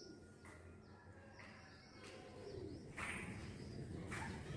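Faint, scattered bird calls over a low, steady background noise, with a soft low call like a dove's coo about halfway through.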